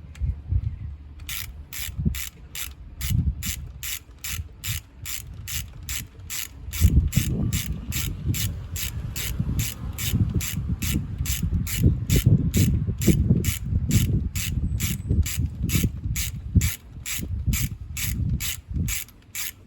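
Socket ratchet clicking steadily, about two clicks a second, while tightening the ignition coil bolts on an engine. From about seven seconds in there is low knocking and rubbing as the tool and hand work against the engine.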